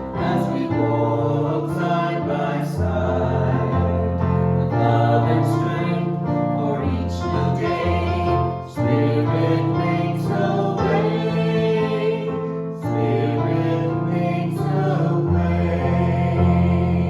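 Church music team singing a gospel-style song, several voices together over instrumental backing with a moving bass line.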